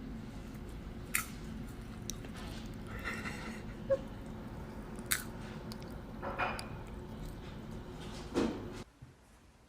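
A pet chewing: chewing and crunching with scattered sharp clicks over a steady background, which drops away abruptly near the end.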